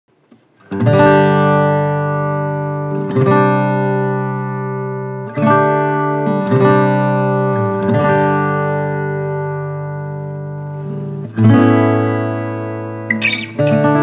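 GWG Guitars 00-size acoustic guitar with a Sitka spruce top and mahogany back and sides, played in slow strummed chords, each left to ring and fade before the next.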